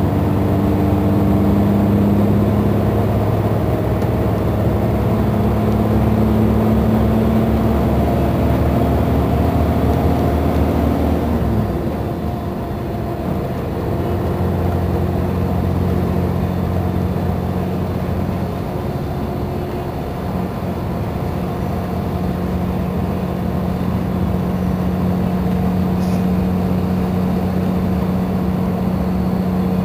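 Euro 4 Mercedes-Benz Intouro bus's diesel engine running under way. Its note climbs steadily, drops abruptly about eleven seconds in, then holds fairly steady with a slight rise later on.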